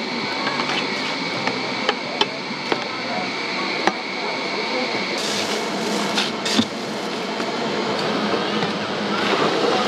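Metal scoop clacking a few times against a plastic tub and blender jug as cut watermelon is scooped, over a steady background hum of crowd and machinery. A thin high whine stops about five seconds in.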